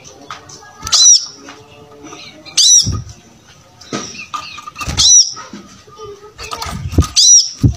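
Brown-throated sunbird singing: loud, sharp, high chirps that arch in pitch, about four of them spaced a second or two apart, with softer twittering between them and a few short low thumps.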